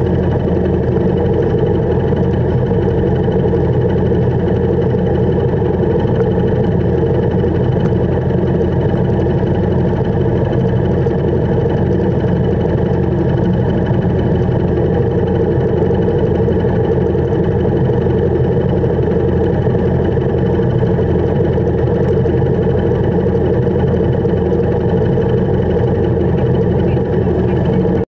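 Motorcycle engine idling steadily.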